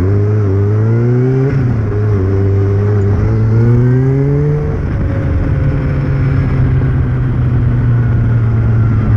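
Kawasaki ZR-7S air-cooled inline-four motorcycle engine running, its revs eased up twice and dropped back each time, then holding a steady idle from about five seconds in.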